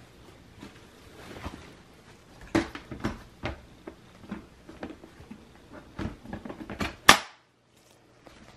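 Paper towel rubbing along the rim of a clear plastic storage tub, then a run of plastic clicks and knocks as its lid is fitted and pressed down, the loudest a sharp snap about seven seconds in.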